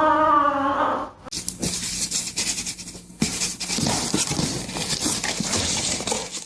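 A cat's drawn-out, wavering meow in the first second, then, after a sudden break, a scratchy rustling noise full of small clicks.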